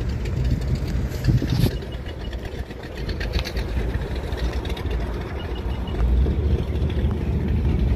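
Idling motorboat engines, a low steady rumble.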